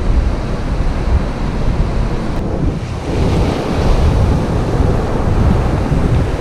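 Strong wind buffeting the microphone over choppy surf breaking on the beach.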